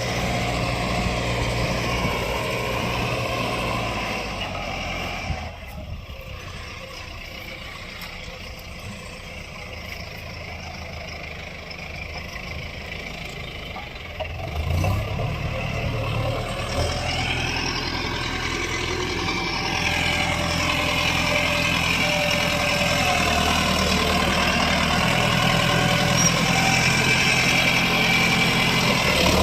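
Tractor engine running while pulling a disc plough. It drops quieter for several seconds, then grows louder again from about halfway and stays loud to the end.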